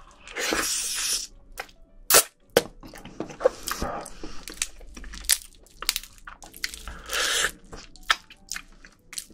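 Close-miked eating of spicy marinated raw crab (yangnyeom gejang): wet sucking and slurping of the meat out of the shell, with many small crunching and chewing clicks. Two longer slurps come about half a second in and near the seven-second mark.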